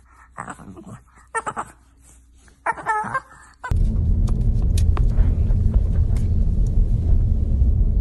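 Steady low road-and-engine rumble inside a moving car's cabin, starting suddenly about three and a half seconds in with a few light clicks over it. Before it there are a few short, high squeaky sounds over near quiet.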